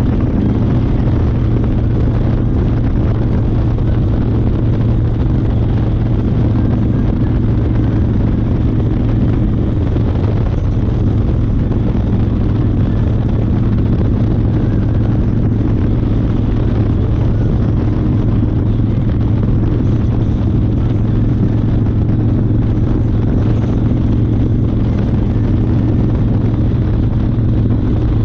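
1992 Harley-Davidson Fat Boy's 1340 cc Evolution V-twin engine running on the move at a steady pitch, with a slight shift in its tone about ten seconds in.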